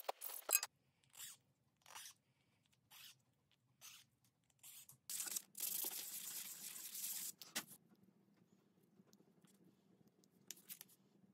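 A small padauk knob being sanded by hand on a sheet of sandpaper laid flat: short scratchy strokes about once a second, then a longer stretch of steady rubbing, the loudest part, about halfway through. It opens with a few rasps of a round file on the knob, and a couple of light clicks come near the end.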